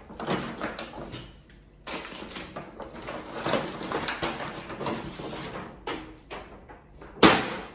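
Rustling and crinkling of grocery bags and packaging as groceries are unpacked onto a kitchen counter, with a loud sharp crackle or knock about seven seconds in.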